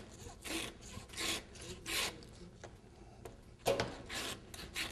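A butcher's hand meat saw rasping back and forth through a hog's leg as the foot is cut off the ham. The strokes come in an even rhythm of about one every 0.7 s, with a short lull a little before three seconds in and a harder stroke just before four seconds.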